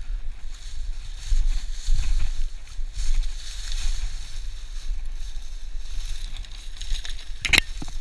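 Footsteps crunching and shuffling through dry fallen leaves down a slope, with wind rumbling on the microphone; a single sharp crack near the end.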